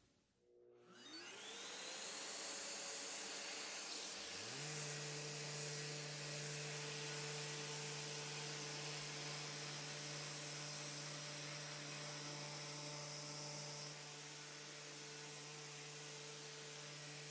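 An electric sander and its dust extractor starting up and running while sanding a teak-veneer tabletop: one motor spins up about a second in and a second about four seconds in, then both run steadily with a vacuum-like rush.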